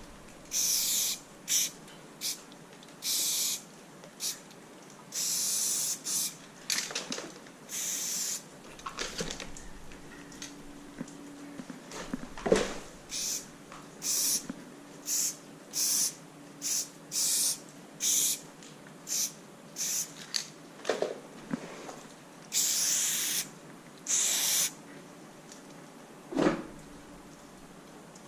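Aerosol spray paint can spraying in many short hissing bursts, some about a second long, with pauses between strokes. There are a couple of knocks, around halfway and near the end.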